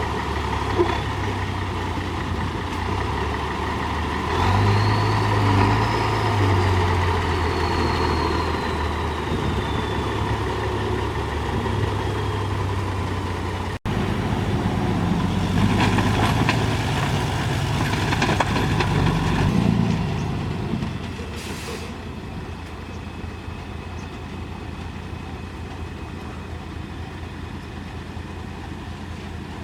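Diesel engine of a JCB 3DX backhoe loader working. It revs up twice under load and then settles to a quieter steady run. A high whine rises and falls during the first surge.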